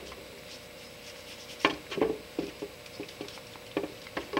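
Solvent brush scrubbing a steel geared cylinder from a Durston ring sizing machine in a solvent bucket. It is quiet for the first second and a half, then come scattered sharp clicks and knocks as the brush and metal part rattle against each other and the bucket.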